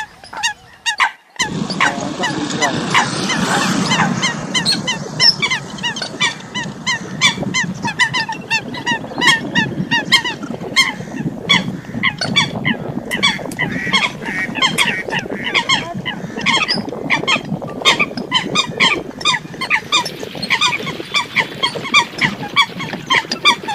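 Eurasian coots calling: short, sharp honking calls repeated several times a second, many overlapping, over a steady low background noise. There is a brief break about a second in, before the calling resumes without pause.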